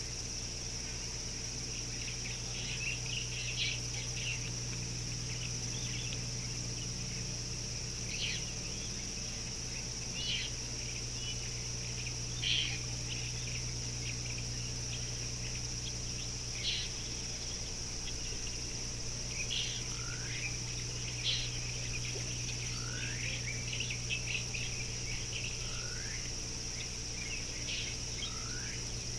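Outdoor bush ambience: a steady high insect drone with short bird chirps and calls every few seconds, several of them rising sweeps, over a low steady hum.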